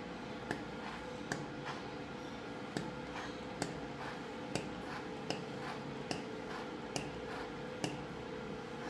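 Foaming hand-soap pump dispenser pressed over and over, a light click about once a second at slightly uneven spacing, over a steady faint hum.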